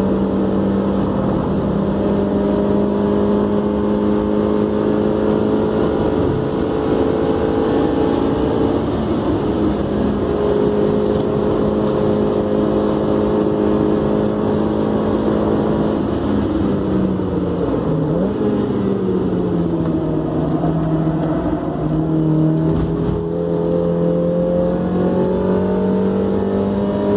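Mazda MX-5 Miata's 1.6-litre four-cylinder engine under hard track driving, heard from inside the cabin, held at high, fairly steady revs with wind and tyre noise. About two thirds of the way in the revs drop and waver with a short blip, then climb again toward the end.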